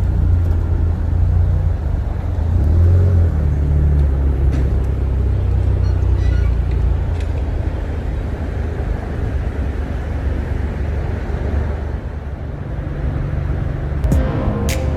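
A car driving, with a steady low rumble of engine and road noise; a few sharp clicks near the end.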